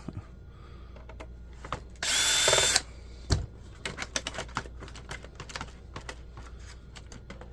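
A power driver runs in one short burst of under a second, about two seconds in, backing out a screw from a laptop case. Small clicks and knocks of parts being handled follow, with one dull thump a little after three seconds.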